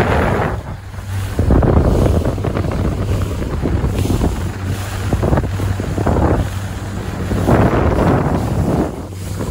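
Wind buffeting the microphone in uneven gusts over the steady hum of an outboard motor and rushing water as a motorboat runs at speed.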